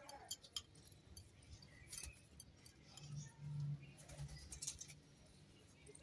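Faint, scattered clicks and taps as Indian ringneck parakeets peck seed pellets from a glass jar, their beaks knocking on the glass, with a cluster of clicks about four seconds in. A short low hum sounds about three seconds in.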